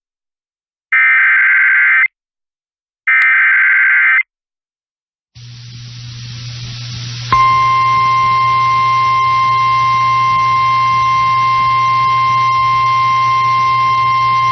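Emergency Alert System SAME header: the last two of three short bursts of warbling digital data tones, about a second each. A hiss with a low hum then fades in, and about seven seconds in the steady single-pitch weather radio attention tone starts. It announces a National Weather Service severe thunderstorm warning.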